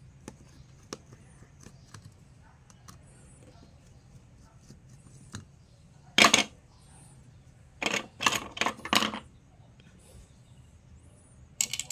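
Handling noise from working on a battery pack's circuit board: faint light clicks of a small metal tool, then a short loud clatter about six seconds in and a quick cluster of three or four more around eight to nine seconds, with another brief one near the end.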